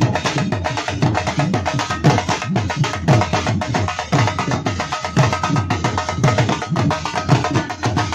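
Punjabi dhol drums, two-headed barrel drums beaten with sticks, playing a fast continuous rhythm together. The deep bass-side strokes drop in pitch as they ring.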